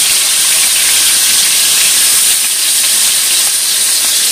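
Small whole bata fish sizzling steadily as they shallow-fry in hot mustard oil in a frying pan.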